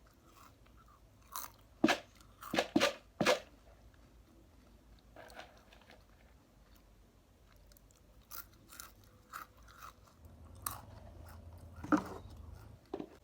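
Close-up chewing and mouth sounds, with scattered sharp clicks, the loudest cluster about two to three seconds in and another near the end.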